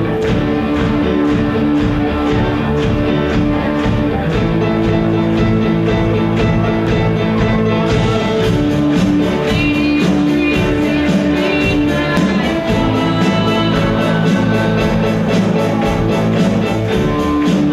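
Live rock band playing: electric guitars, keyboard and drums, loud and steady, with the cymbals growing brighter about eight seconds in.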